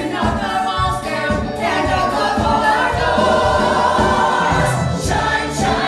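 Musical theatre cast singing together in chorus over a band accompaniment with a steady beat, heard live in a theatre.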